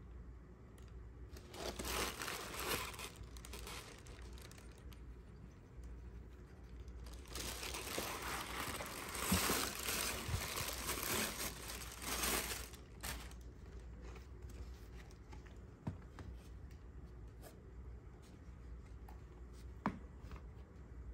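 Thin white packing wrap crinkling and rustling as a leather boot is handled in it: a short spell about two seconds in and a longer, louder one from about seven to thirteen seconds. After that it is quiet but for a light tap or two, the clearest near the end.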